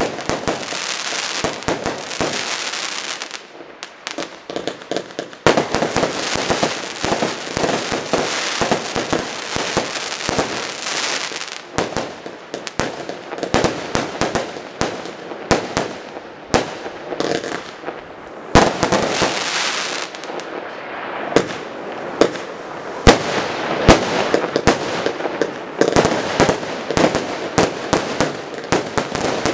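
A 200-shot, 20 mm consumer fireworks cake (Earth Tremor) firing in rapid succession: launches and bursting reports one after another, at times merging into a dense, continuous rush, with a brief lull about four seconds in.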